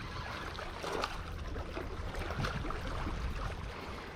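Wind buffeting the microphone over water washing at a rocky shoreline, with a few faint clicks.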